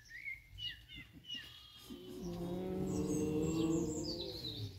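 A few short, high bird chirps, then a long drawn-out call holding a steady pitch for about two and a half seconds, the loudest sound.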